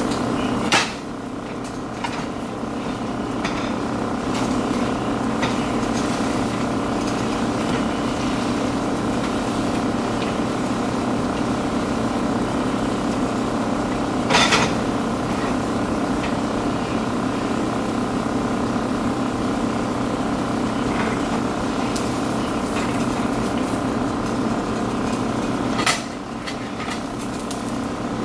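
A steady mechanical hum runs throughout. A spatula knocks against a nonstick frying pan three times: about a second in, about halfway, and near the end.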